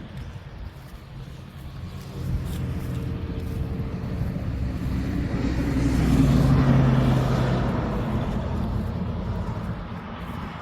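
A motor vehicle driving past: its engine and rumble grow louder from about two seconds in, are loudest a little past the middle, then fade away.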